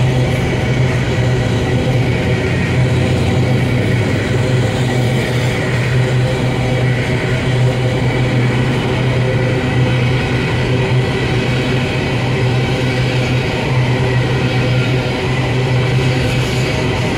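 Empty covered hopper cars of a freight train rolling past close by: a steady rumble of steel wheels on the rails that keeps on without a break.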